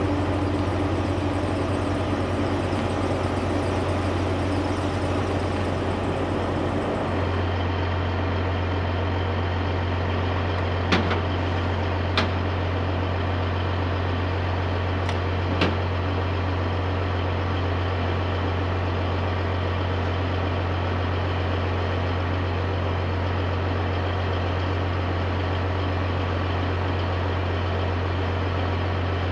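Heavy diesel truck engine idling steadily, its sound shifting slightly at a cut about a quarter of the way through. Three or four short, sharp knocks fall just before the middle.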